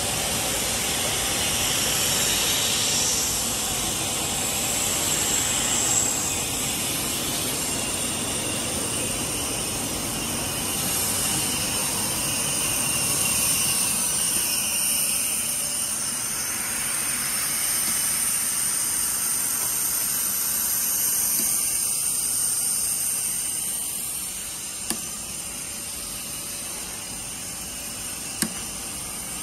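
PP tube extrusion line running: a steady hissing machine noise. Two sharp clicks come near the end.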